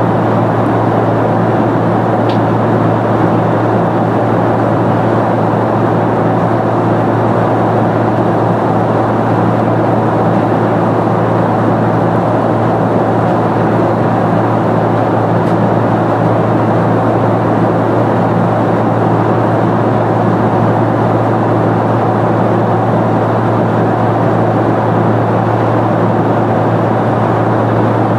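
Steady in-flight cabin noise inside a Boeing 747-400: the rush of airflow and the drone of its four GE CF6-80C2 engines, with a strong low hum under it.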